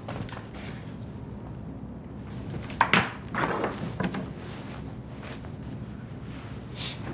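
Quiet room tone broken by a few knocks and rustles as someone moves about and handles things: two close together about three seconds in, and a softer one about a second later.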